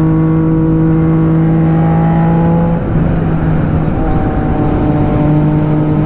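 Motorcycle engine on a naked bike running at a steady engine speed while riding, heard through a helmet-mounted microphone along with wind noise. The engine note briefly drops out about three seconds in, then settles steady again, and the wind hiss grows stronger near the end.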